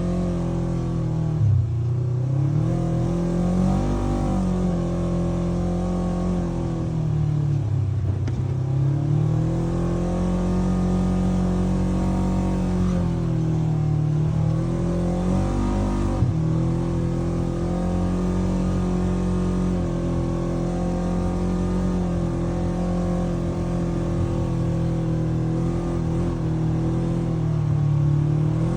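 Polaris RZR 900 side-by-side's engine running hard at high revs while dune driving. Its pitch drops and climbs again several times as the throttle is eased and reapplied.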